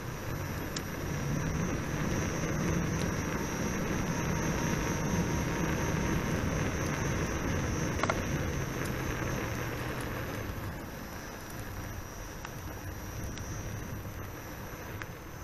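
Steady riding noise: tyre rumble on asphalt mixed with wind on the microphone, with a single sharp click about eight seconds in. It grows louder about a second in and eases off after about ten seconds.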